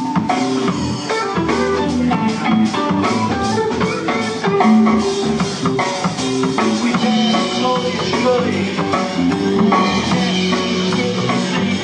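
A band playing a rock or blues tune: electric guitar over a drum kit keeping a steady beat.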